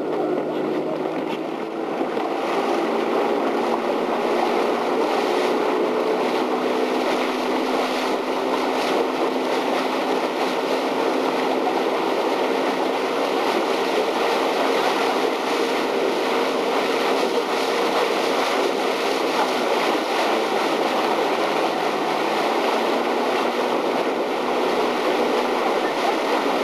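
Boat motor running steadily at a constant speed, mixed with wind and water noise.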